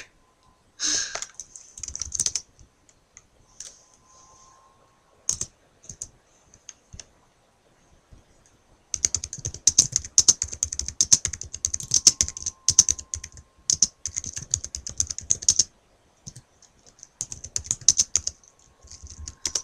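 Typing on a computer keyboard: a few scattered key clicks, then long fast runs of keystrokes with short pauses between them.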